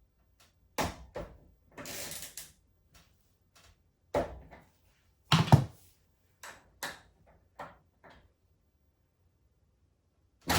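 A wrench knocking and clanking against a washing machine's transport bolts as they are turned: a string of sharp knocks, the loudest about five and a half seconds in, with a short scraping rasp about two seconds in.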